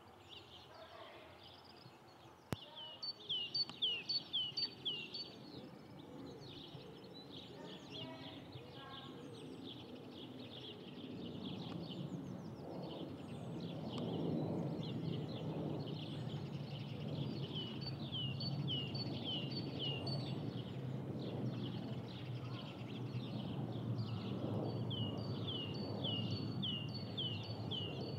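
A songbird sings three phrases, each a quick run of short downward-sweeping notes. Beneath it, the low, distant rumble of a high-flying jet airliner, a Boeing 747-8 at cruise altitude, swells up about midway and holds.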